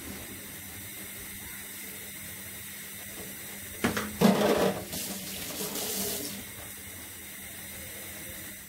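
Steady background hiss. About four seconds in, water runs and splashes for a couple of seconds, louder than the rest, then stops.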